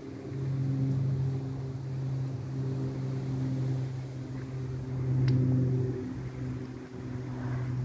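HC-130J's four turboprop engines and propellers droning overhead: a low, steady hum that swells and fades in slow pulses. A brief click about five seconds in.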